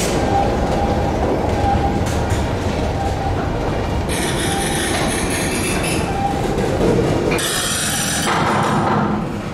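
CSX freight train rolling slowly through a rail yard with a steady rumble. Its wheels squeal high-pitched twice, about four seconds in and again near the end.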